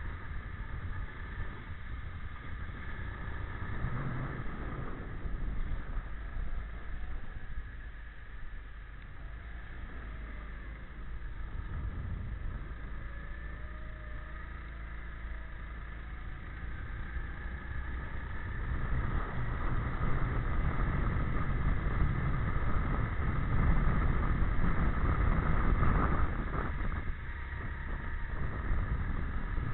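Go-kart engine running at speed as heard from on board the kart, its pitch rising and falling with the throttle through the corners over a low rumble. It gets louder past the middle and eases off briefly near the end.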